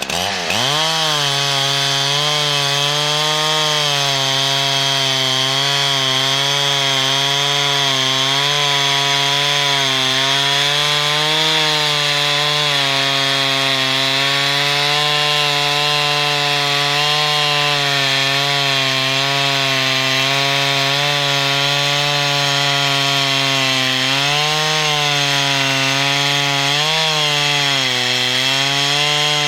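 Two-stroke chainsaw on a chainsaw lumber mill revving up at the start and then running at high speed under load, cutting through a log, its pitch wavering slightly as the cut goes on.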